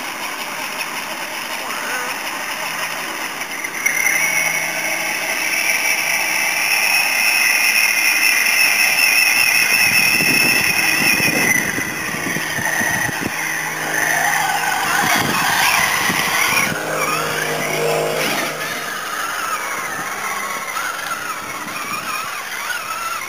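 Traxxas Summit RC truck's Mamba Monster 2650kv brushless motor whining under throttle as it drives its spinning tyres through water, the water splashing around the wheels. The whine is loudest and steady with a wavering pitch from about 4 s to 11 s, then rises and falls as the throttle is worked.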